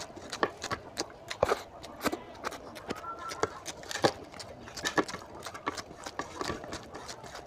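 Wet, sticky squelches and clicks of a hand kneading rice with oily mutton curry on a plate, along with chewing and lip smacks, coming irregularly a few times a second.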